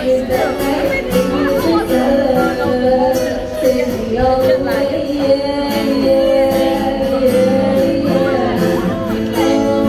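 Live song: a girl singing through a microphone over a strummed acoustic guitar.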